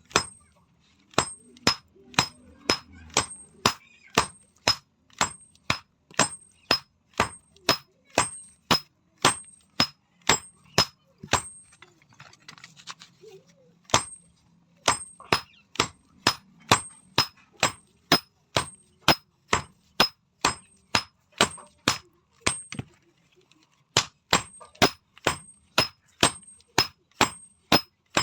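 Blacksmith's hand hammer striking steel on an anvil in hand forging: a steady run of ringing metal blows, about two a second. The blows stop for a couple of seconds about halfway, and briefly again near the end.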